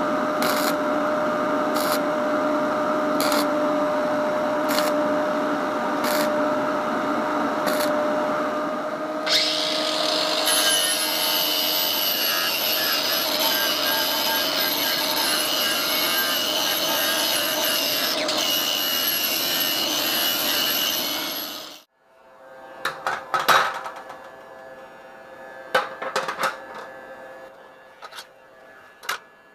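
A steady electric hum with a light tick about every second and a half, then, about nine seconds in, a Ryobi angle grinder with a cut-off disc cutting through metal tubing with a steady high whine. The grinding stops suddenly and is followed by a few scattered clanks and knocks of metal being handled on a metal bench.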